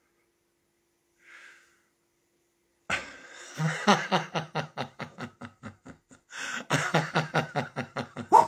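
A woman laughing heartily: after about three seconds of quiet, a long run of quick, pitched "ha" pulses, broken briefly around six seconds in before starting up again.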